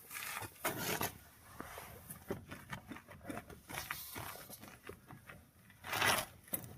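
Hand-tool and metal-part handling on a car's front wheel hub: a string of small clicks and knocks, with two louder rasping scrapes, one at the start and one near the end.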